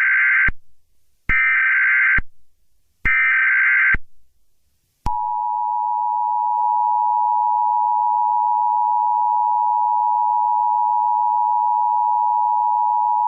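Emergency Alert System tones. First come three short bursts of digital SAME header data, each about a second long. Then, about five seconds in, the steady two-tone EAS attention signal sounds and holds for about eight seconds.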